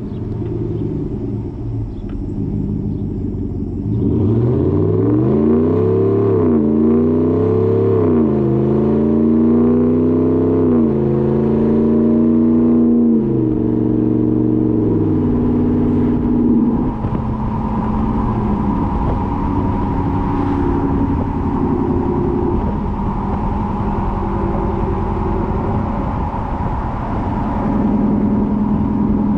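Ram 1500's 5.7 Hemi V8 through a Borla S-Type exhaust, idling at first, then revved several times in rising and falling sweeps before settling back to a steady, deep running note.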